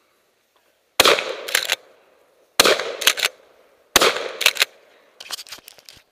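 Pump-action shotgun fired three times, about a second and a half apart, each shot followed by the quick double clack of the pump being racked. A scatter of lighter clicks and rattles follows near the end.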